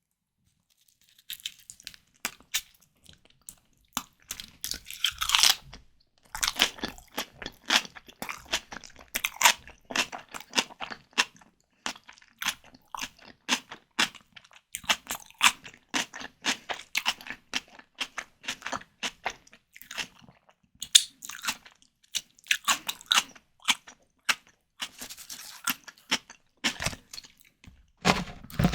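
Close-miked chewing and biting of white tiger prawn cocktail: rapid wet crunching clicks in bouts, with brief pauses between mouthfuls. It is silent for about the first second.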